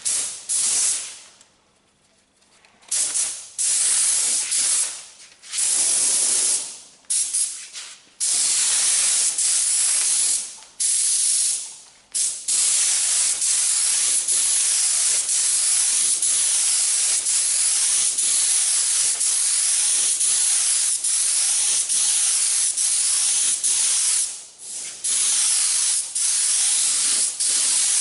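Gravity-feed paint spray gun hissing as it lays a wet first coat of epoxy primer. At first it comes in short trigger pulls with brief gaps, then in long unbroken passes from a little before halfway, with one short break near the end.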